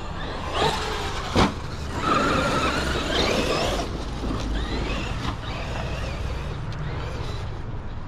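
Traxxas X-Maxx electric RC monster truck driving, its brushless motor whining and wavering up and down in pitch for a couple of seconds. Before that come two sharp knocks, the second one the loudest sound.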